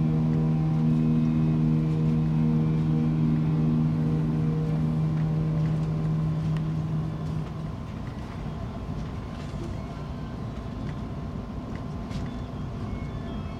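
Steady low rumble of a moving vehicle heard from inside the cabin, under a held low musical chord that fades out about halfway through.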